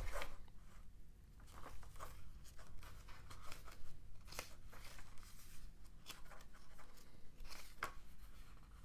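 Pages of a small paper booklet being turned and smoothed by hand: faint, irregular paper rustles and light taps.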